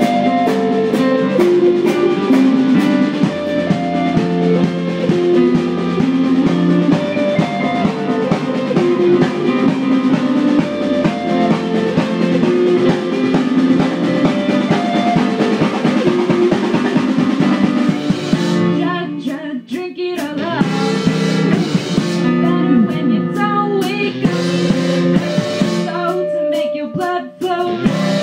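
A band playing a song live in a small room: electric guitars and keyboard over drums with steady cymbal ticks. The band thins out briefly about two-thirds of the way through and again near the end.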